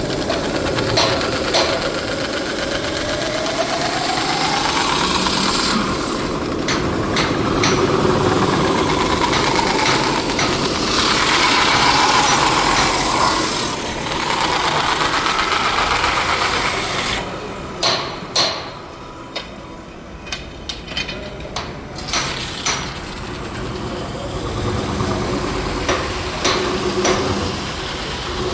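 Metal lathe running while aluminium is worked, with a squeal that rises and falls in pitch. It drops quieter partway through, with a few sharp clicks and knocks, then runs on.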